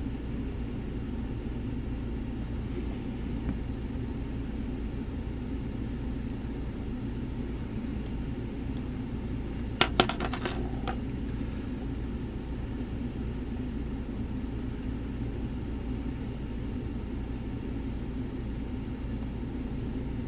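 Lock pick working the pins of a Nemef NF4 dimple lock: faint metallic ticks, with a short cluster of sharper clicks about halfway through, over a steady low hum.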